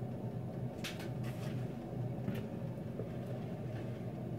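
Steady low hum in the kitchen, with a few faint light clicks and knocks as the batter bowl is handled.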